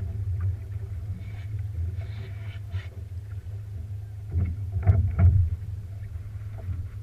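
Steady low rumble aboard a small boat on the water, with a few louder knocks about two-thirds of the way through.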